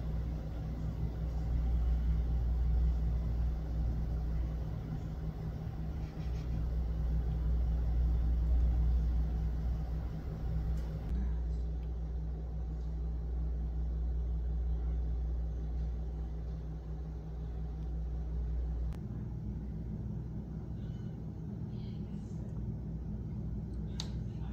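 Steady low background rumble whose tone shifts abruptly twice, with a few faint ticks above it.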